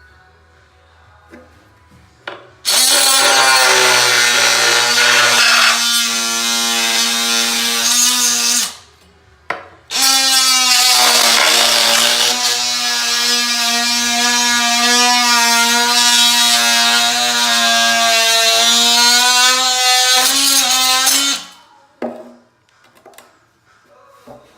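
Oscillating multi-tool cutting through a PVC toilet flange with a steady buzzing hum. It runs in two bursts, about six seconds and then about eleven seconds, with a brief stop in between.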